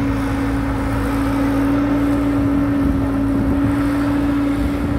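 Tracked hydraulic excavator's diesel engine running steadily under load as it swings and tips a bucket of soil, a constant drone with one steady tone over a low hum.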